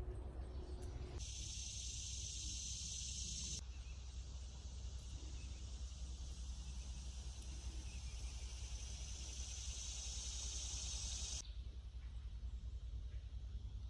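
Steady high-pitched insect buzzing that starts abruptly about a second in and cuts off near the end, over a low steady background rumble.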